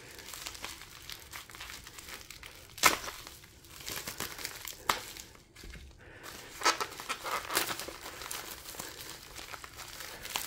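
Wrapping being crinkled, crumpled and torn as it is peeled off a coin roll by hand, with a few sharp crackles, the loudest about three seconds in.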